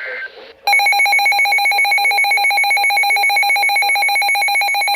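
A NOAA weather radio sounding its alert alarm for an incoming emergency alert: a loud, very rapid electronic beeping that starts just under a second in and keeps going. A short steady electronic tone ends just before it.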